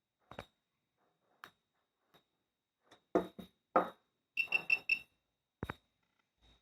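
Geiger-counter dosimeter clicking at random, irregular intervals, each click with a faint high ring, and four quick high-pitched beeps from the device a little past the middle.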